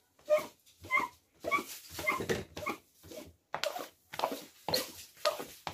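Small rubber sink squeegee scraping across a wet stainless-steel drainboard in quick back-and-forth strokes, about two a second, squeaking briefly on each stroke.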